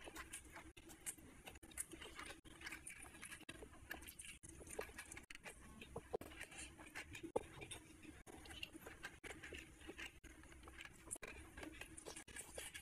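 Close-miked chewing and wet mouth sounds of someone eating rice and curry by hand: many small, irregular smacks and clicks, faint throughout.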